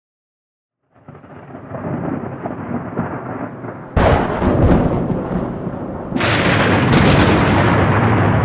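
Thunder sound effect: after a second of silence a rumble builds, a sharp crack of thunder strikes about four seconds in, and a second, louder crash about two seconds later rumbles on.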